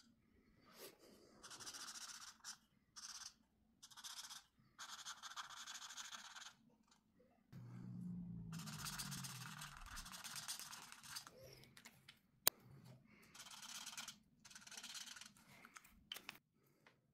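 Felt-tip marker scratching across colouring-book paper in a run of short strokes with brief pauses between them, faint. One sharp click sounds about two-thirds of the way through.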